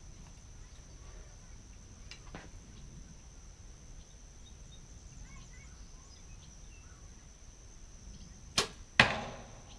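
An archery bow shot: a sharp snap of the bowstring on release, then the thud of the arrow striking the target about half a second later.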